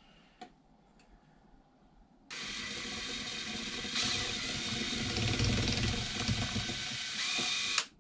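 Cordless drill with a socket running a bolt down into the top of a vintage gas pump: it starts about two seconds in, runs steadily for about five and a half seconds and cuts off abruptly.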